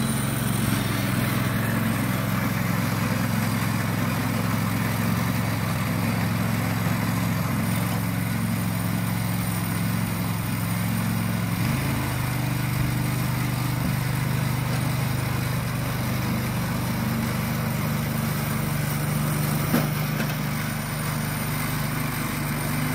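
Two-stage snowblower's small single-cylinder engine running steadily after a repair. Its note changes slightly about halfway through.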